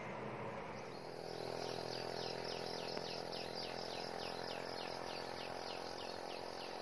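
An animal calling with a rapid, regular series of short, high, downward-sliding chirps, about three a second, fading near the end.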